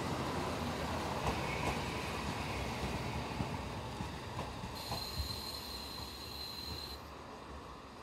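JR Hokkaido KiHa 40 single-car diesel railcar pulling away past the listener: diesel engine rumble with a few clicks of wheels over the rail joints, fading as it moves off. For about two seconds past the middle a high, steady whine sounds, then cuts off suddenly.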